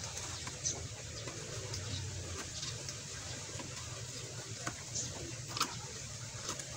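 Faint rustling of cloth strips with a few light clicks as a hand works the strips over the nails of a wooden nail-frame loom for a rag doormat. A steady low hum sits underneath.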